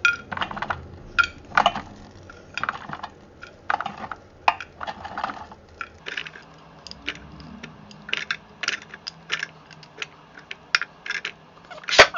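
Kitchen tongs clicking and clattering as pork ribs are picked out of an air fryer basket and set on a plate: an uneven run of light clicks and knocks, with one sharper knock near the end.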